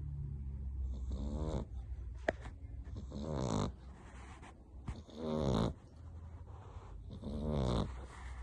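Sleeping French bulldog puppy snoring: four drawn-out snores about two seconds apart.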